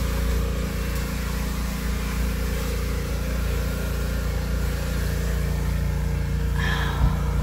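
Steady mechanical drone of a running motor, made of several level low tones that hold unchanged, with a brief faint sound near the end.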